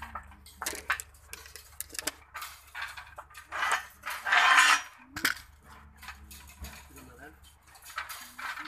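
Metal fence wire clinking and rattling as short cut wire pieces and the wire mesh are handled and twisted by hand, with a louder rattle of the wire pieces about four seconds in.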